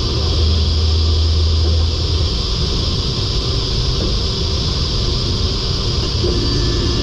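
Holzher Pro-Master 7125 five-axis CNC machining centre running: a steady rushing machine noise from the spindle and dust extraction, with a low hum for the first two seconds and a steadier, higher hum coming in near the end.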